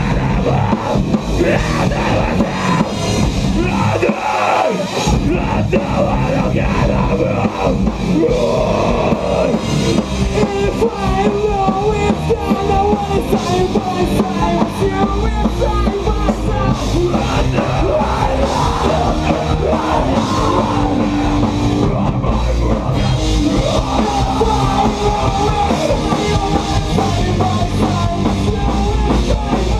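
Live rock band playing loud, with a drum kit and a vocal line; the low end drops out briefly about four seconds in.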